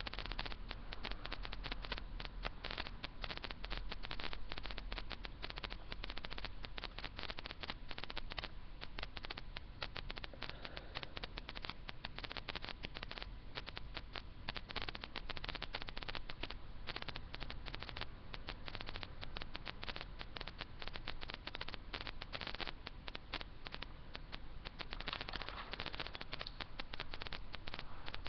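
Crackling static on a teleconference line: a steady, dense run of fast clicks and hiss with a low hum underneath.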